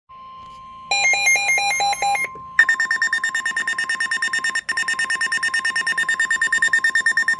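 Emergency weather alert tones: a steady high alert tone sounds under an electronic alarm that first plays a quick stepping two-note pattern for about a second and a half, then, about two and a half seconds in, switches to a loud, rapid pulsing beep that runs on. It is the attention signal ahead of a spoken special marine warning.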